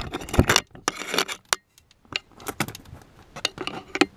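A coiled wire bundle and plastic footwell trim being handled by hand: irregular clicks, knocks and scrapes, with a short lull about halfway through.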